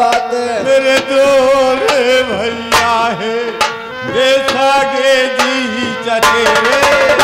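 Instrumental accompaniment to a folk stage drama: a melody instrument plays a gliding, ornamented line over widely spaced hand-drum strokes. The drumming quickens near the end.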